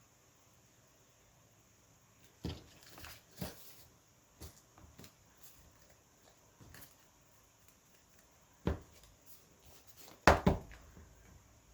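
Paper and craft supplies being handled on a work table: scattered light knocks and taps with some paper rustling, the loudest two knocks close together near the end.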